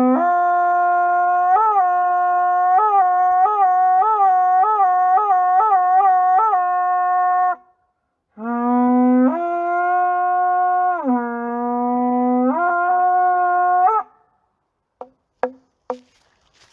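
Japanese conch-shell trumpet (horagai) blown in two long blasts, each stepping between a low and a higher note. The first carries a string of quick upward flicks in pitch, and three short toots follow near the end.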